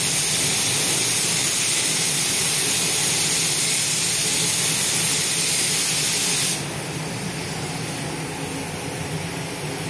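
Gravity-feed compressed-air spray gun hissing steadily as it sprays paint onto a car door. The hiss cuts off abruptly about two-thirds of the way through when the trigger is released. A lower steady hum carries on underneath.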